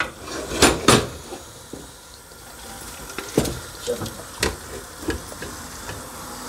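Thick masala sizzling gently in a pot while a silicone spatula stirs and scrapes it, with sharp knocks of utensil against pot: two loud ones about a second in, then several lighter ones a couple of seconds later.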